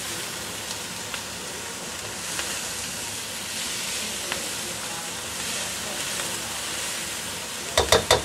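Garlic chive flower stalks sizzling as they stir-fry in a non-stick pan: a steady hiss with light scrapes of the spatula. Near the end comes a quick run of four sharp knocks, the spatula striking the pan.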